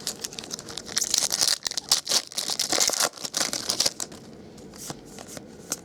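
Foil wrapper of a trading-card pack being torn open and crinkled, a dense crackling that is busiest for the first four seconds, then a few lighter rustles.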